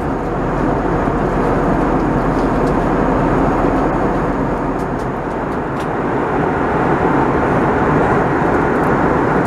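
Steady cabin noise of an Airbus A320 in flight, heard from a window seat beside the wing: the rush of airflow and the hum of its IAE V2527-A5 turbofan engines, with a few faint ticks about halfway through.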